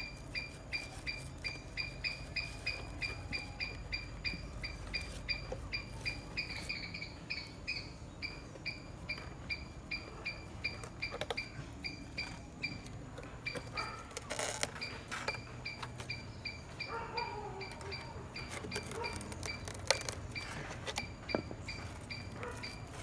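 An animal's short, high chirp repeated steadily about two to three times a second, with a brief break partway through, then continuing more faintly. Under it, a few soft knocks and rustles of hands handling a coconut husk and wire.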